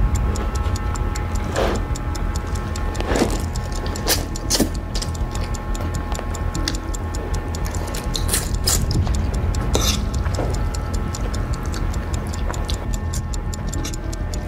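Ticking-clock sound effect over a low, steady music bed, with loud slurps of spicy noodles being sucked up several times.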